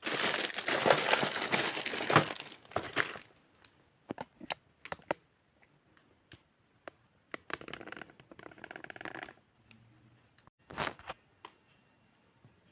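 Plastic packaging crinkling and rustling loudly for about three seconds, then scattered small clicks and taps from handling miniature toy kitchenware, with two shorter rustles later on.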